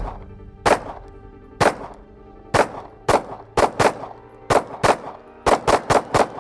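A 9mm semi-automatic pistol, the Arsenal Firearms Strike One, fired about a dozen times, each shot sharp with a short echo. The shots come about a second apart at first, then speed up into quick strings of rapid fire in the second half.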